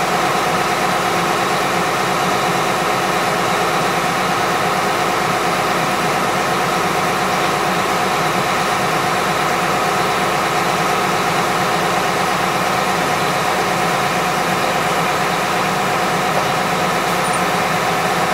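Small horizontal directional drilling rig's engine running steadily at constant speed: a loud, even drone with several unchanging tones.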